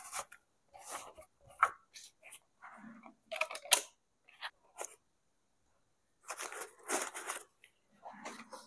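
Plastic packaging and paper wrapping being handled and pulled open: short, scattered crinkling and tearing rustles, a quiet second or so past the middle, then a longer rustle.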